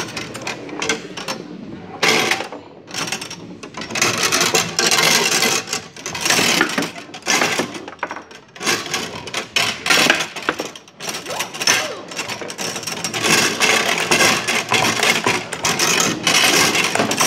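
Foosball table in fast play. Metal rods and player figures clatter and rattle rapidly, with a few short lulls.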